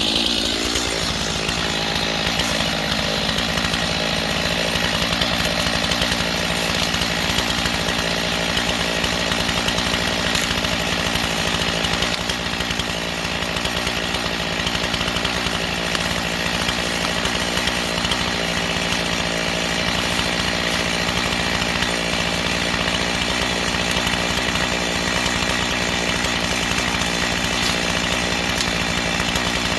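Gas chainsaw running at high, steady speed while cutting wood, with a brief dip in loudness a little under halfway through.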